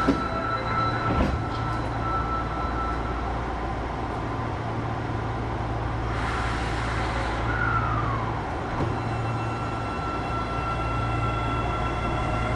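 Osaka Metro 25 series subway train: a steady whine from its electrical equipment over a low hum, with a brief hiss about six seconds in and a short falling tone just after it.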